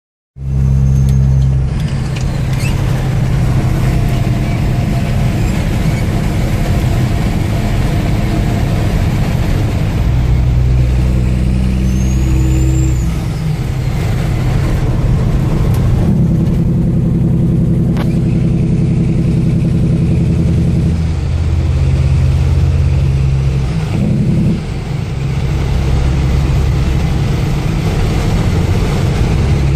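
Kenworth W900L semi truck's diesel engine running loud while the truck drives, its engine speed stepping up and down several times.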